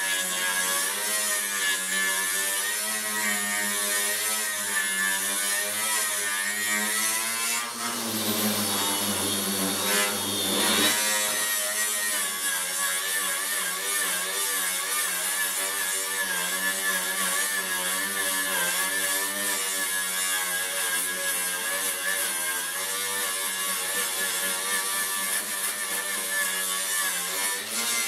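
Electric angle grinder with a wire brush scouring rust off a steel sheet: a continuous motor whine with the scratch of the wires on the metal, wavering in pitch as the tool is pressed and moved. About eight seconds in the whine drops lower and rougher for a few seconds under heavier pressure, then picks up again.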